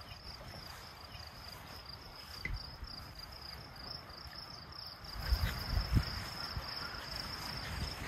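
Crickets chirping in a steady, evenly pulsing high trill. A few low thumps come about five to six seconds in.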